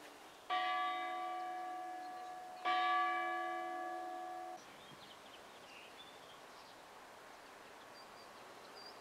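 Church bell struck twice, about two seconds apart. Each stroke rings on with several overtones, and the second comes before the first has died away. The ringing cuts off suddenly about two seconds after the second stroke.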